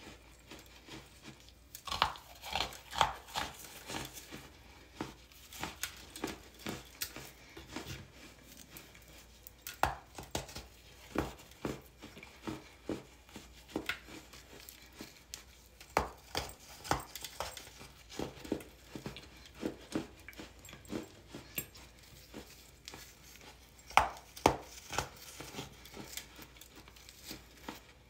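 Hardened baking soda chunks crunching and crumbling, in irregular clusters of crisp cracks with quieter crumbly rustling between them.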